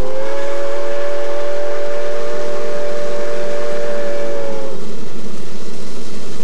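Steam locomotive whistle blowing one long blast of several tones at once, lasting about four and a half seconds and cutting off near the end. The locomotive's steam and running noise carry on after it.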